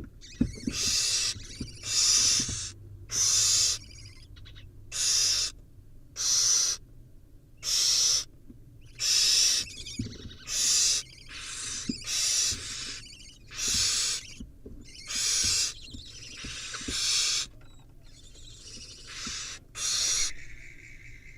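Barn owl nestlings giving harsh hissing screeches, one burst about every second and a half, with faint low knocks between them.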